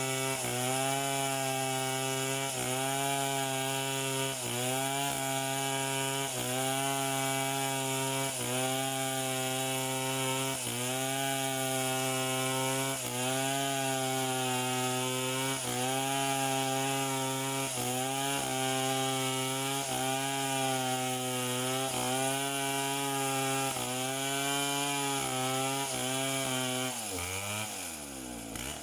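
Chainsaw engine running hard while cutting wood, its pitch dipping and recovering in a regular rhythm about every second and a half as the cut loads it. Near the end the throttle comes off and the engine winds down in pitch.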